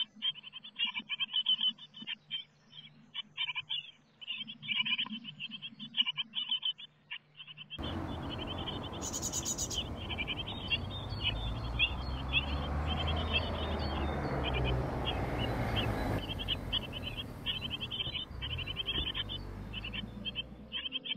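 Great tit nestlings in a nest box calling, a rapid run of short high chirps. About eight seconds in, a steady low rumbling noise joins under the chirps and carries on almost to the end.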